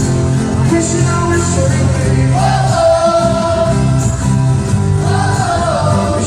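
Live pop-rock band playing, with steady bass notes under a held, gliding sung vocal line.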